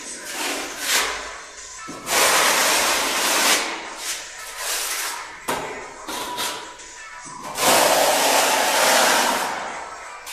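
Steel spatulas scraping tile adhesive over a concrete floor and in a bucket while skim-levelling the floor: two long loud scrapes about two and eight seconds in, with shorter scrapes and taps between.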